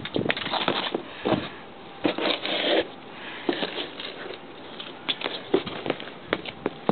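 Black Laredo boots stomping and scuffing on concrete and kicking a pair of camo Timberland boots: a string of sharp knocks, scrapes and thuds, with a busier stretch of scraping about two to three seconds in.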